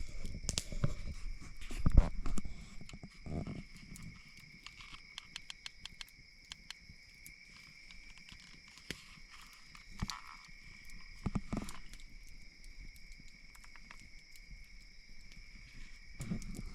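Steady, high-pitched chorus of insects at a campsite, with knocks, clicks and rustling of gear being handled, heaviest in the first few seconds, where a thump about two seconds in is the loudest sound, and again around ten seconds in.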